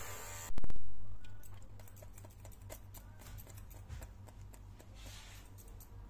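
Barber's scissors snipping hair: many faint, quick clicks over a steady low hum. About half a second in, a sudden loud sound starts and fades away over a second or so.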